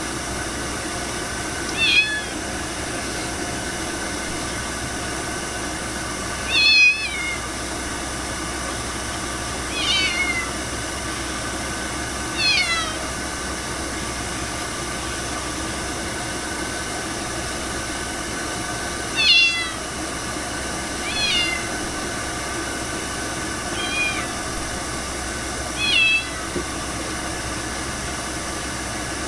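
Ragdoll cat meowing repeatedly: eight short meows, each falling in pitch, spaced a few seconds apart over a steady background noise.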